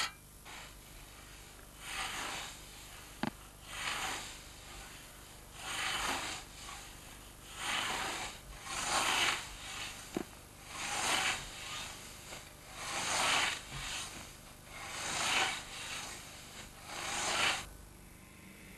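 Hand scythe swishing through tall grass in regular mowing strokes, one swish of about a second roughly every two seconds.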